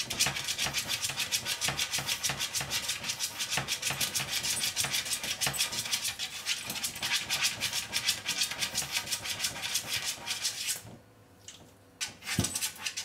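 A pug's front claws scratching rapidly at a wooden kitchen cupboard door, a quick run of rasping strokes as it paws to get the door open, stopping about eleven seconds in. A single thump follows near the end.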